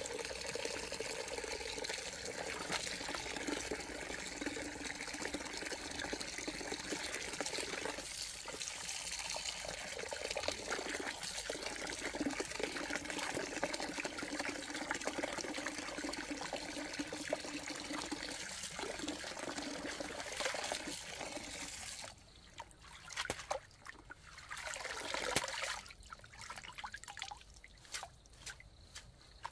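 Water running or pouring steadily into a container, then stopping suddenly about 22 seconds in, leaving a few drips and one short splash.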